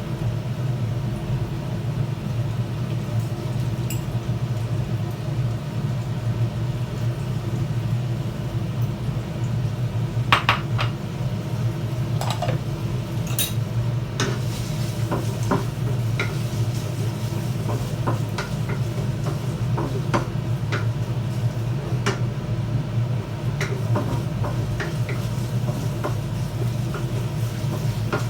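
A cooking utensil stirs and scrapes pork with garlic, onion and ginger in a pan, with scattered clinks and knocks against the pan. A steady low hum runs underneath.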